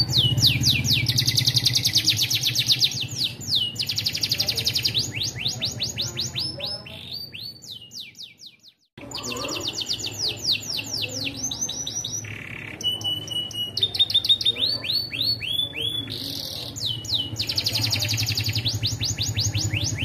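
Domestic canary singing a long, continuous song of fast trills, each a rapid run of repeated descending notes, switching from one trill to the next every few seconds, with a brief break about eight seconds in. It is the long, unbroken 'ngeloss' style of song used to lure other canaries into singing.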